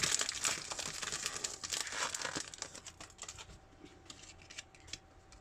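Foil wrapper of a Pokémon Hidden Fates booster pack crinkling and tearing as it is opened, dense for the first couple of seconds, then thinning to scattered crackles that fade.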